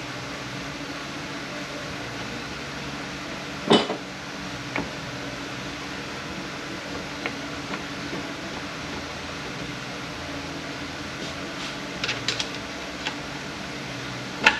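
Steady hum of a shop fan or ventilation, with occasional light clinks of hard objects as tools and transmission parts are handled. There is one sharper clink about four seconds in and a few quick clicks near the end.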